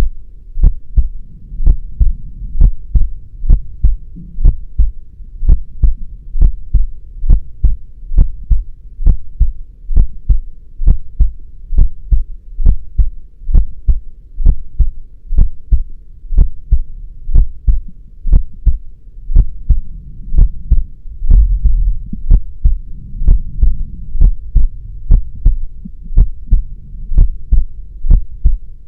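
Heartbeat: a steady, even rhythm of deep thumps, each beat a lub-dub double thump, over a low hum.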